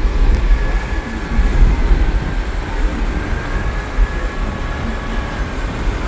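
Strong wind buffeting the microphone: a loud, uneven low rumble, with a faint steady hum underneath.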